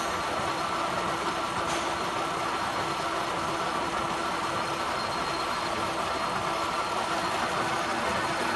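Gear hobbing machine running steadily as its hob cuts teeth into a bronze worm wheel: an even mechanical noise with a constant hum.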